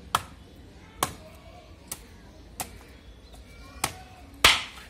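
Kitchen knife chopping through a whole fish onto a wooden cutting board: six sharp chops, roughly one a second, the one near the end the loudest.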